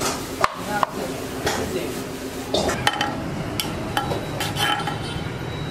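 Metal ladle knocking and clinking against a large aluminium cooking pot as cooked rice is spread in a layer, a scatter of sharp clinks over a steady low background noise.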